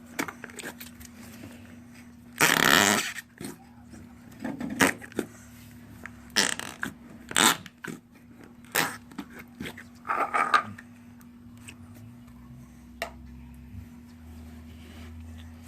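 Homemade slime being squished so that trapped air escapes in fart-like squelches, about six of them, the longest and loudest about two and a half seconds in.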